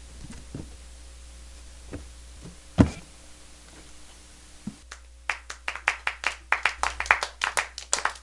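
A few isolated knocks, the loudest about three seconds in, then from about five seconds in a small group of people clapping: quick, uneven claps, several a second.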